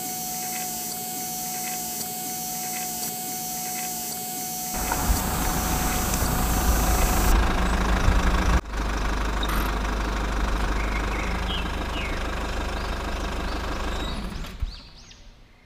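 A motor or engine running steadily, with a thin steady whine over it at first. About five seconds in it becomes louder and deeper. It breaks off briefly a little past the middle, then runs on and fades out near the end.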